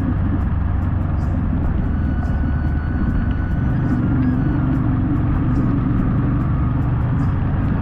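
Yamaha R15 V3 motorcycle's single-cylinder engine running steadily as the bike rolls slowly over a rough dirt road, a continuous low drone whose note shifts slightly about halfway through.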